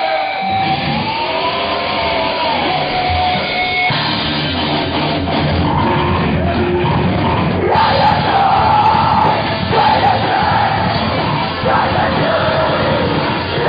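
Live heavy metal band playing the opening of a song, with amplified instruments and drums; the sound grows fuller from about four seconds in.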